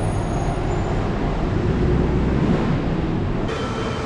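Steady low rumble of a vehicle on the move, with no distinct events. The sound changes abruptly about three and a half seconds in.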